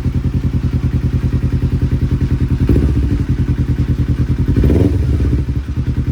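2009 Kawasaki Ninja 250's parallel-twin engine idling with an even, pulsing beat, blipped up briefly twice, about a third and three quarters of the way through. It sounds really good.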